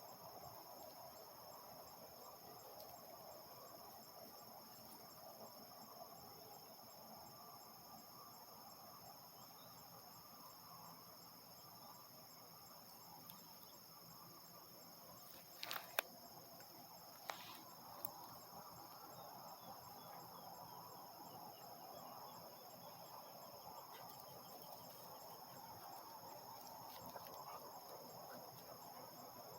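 Crickets and other insects trilling steadily, several high continuous tones at once, over a faint distant hum of harvest machinery. Two sharp clicks come about halfway through.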